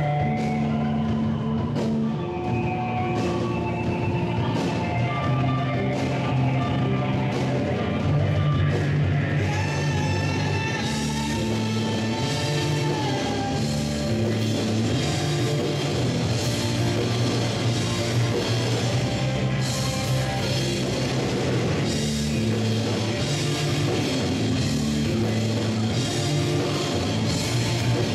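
A rock band playing: drum kit, guitar and bass guitar, with a bass line that changes note about every second.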